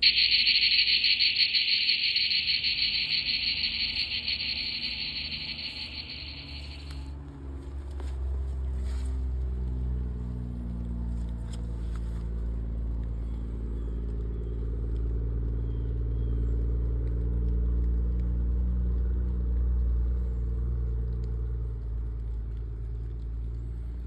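A cicada's loud, steady buzzing song for about the first seven seconds, fading a little before it stops. Then a heavy truck from a rock quarry drives by, its engine a low rumble that builds and holds until it cuts off at the end.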